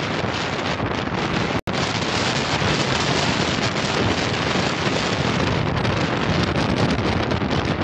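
Wind rushing over the microphone of a moving car, with road noise underneath; the sound drops out for an instant about one and a half seconds in.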